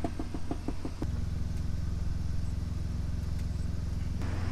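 Truck engine idling: a low, steady drone with an even, fine pulse through most of it. A few light clicks come in the first second.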